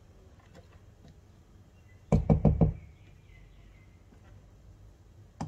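Steel beaters of an electric hand mixer knocked four times in quick succession against a stainless steel bowl holding whipped egg whites, with a brief ring from the bowl afterwards; one more knock near the end. The mixer is switched off.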